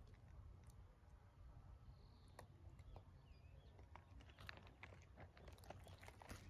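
Near silence: a faint low rumble with scattered faint ticks, more of them near the end, and a faint short chirp about two and a half seconds in.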